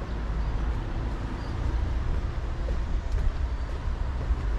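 Outdoor urban street ambience: an uneven low rumble with a steady hiss.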